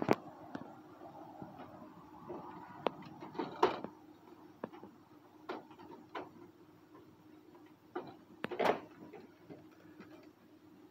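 A rabbit nibbling fresh greens in a wire cage: scattered light clicks and rustles, with two louder rustles about three and a half and eight and a half seconds in.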